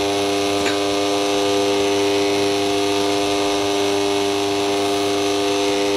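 Bosch stand mixer's motor running steadily with a constant whine, its whisk beating a chocolate-cake batter of eggs, sugar, milk and oil in a steel bowl.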